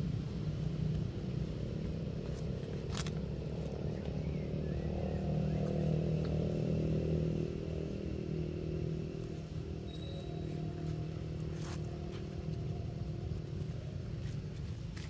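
A steady low engine hum, like a motor vehicle running nearby, that swells a few seconds in and then eases off. Two sharp clicks stand out, one early and one near the end.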